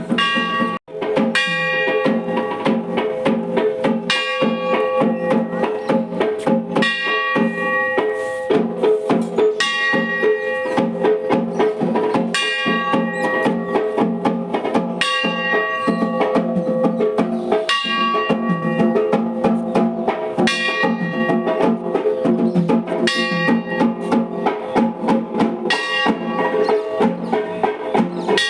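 Background music with a steady percussive beat and repeating pitched notes.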